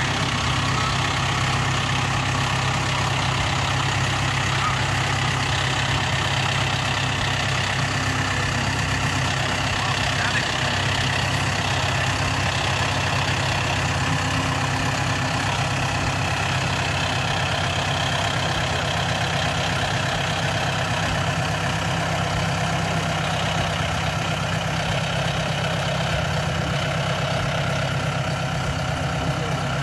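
John Deere utility tractor's diesel engine running steadily at an even, low speed while it pulls a water-wheel transplanter slowly along the beds.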